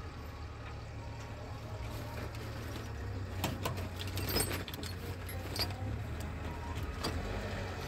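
Diesel engine of a JCB backhoe loader running low and steady as it loads stone ballast into a tractor trailer, with several sharp clinks scattered through the middle.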